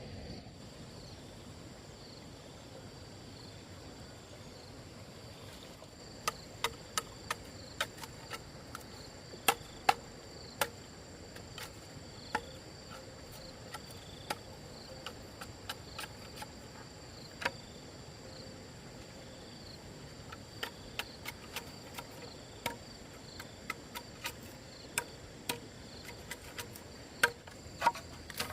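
Insects, crickets or similar, chirring steadily at a high pitch. From about six seconds in there are irregular sharp clicks or taps, a few a second at most.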